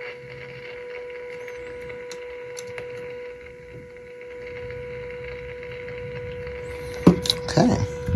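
A steady test tone with hiss from the loudspeaker of a 1946 Olympic 6-601 tube radio, receiving the signal generator's modulated signal during IF alignment; the tone grows a little louder from about halfway as the IF transformer is peaked. A few sharp knocks of handling come near the end.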